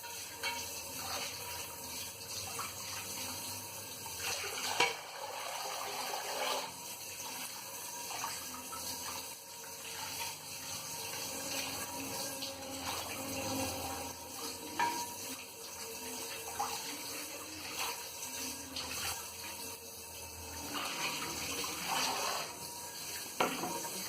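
Tap water running into a sink while the microwave's glass tray is rinsed and washed by hand, with occasional knocks of the tray against the sink, the sharpest about five seconds in.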